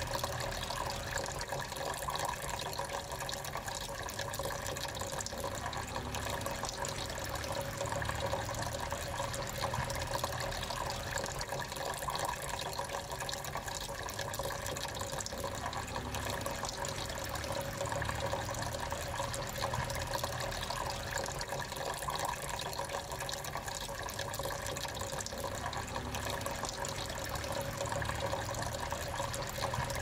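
Water trickling steadily down a small tabletop cascade fountain, spilling in thin streams from one pot into the next.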